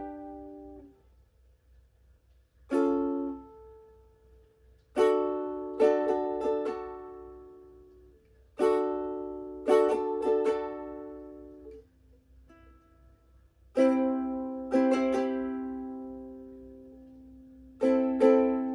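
Ukulele chords strummed one or two at a time, each left to ring out and fade before the next, with short pauses between: slow chord-riff practice.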